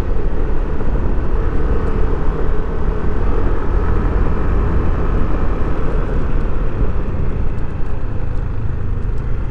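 Yamaha NMAX 155 scooter underway, its single-cylinder engine running steadily under heavy wind noise on the microphone.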